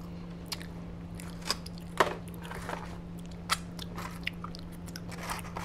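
Close-miked eating sounds: a few short crunches and clicks as fries are picked from a foam clamshell box and chewed, over a steady low hum.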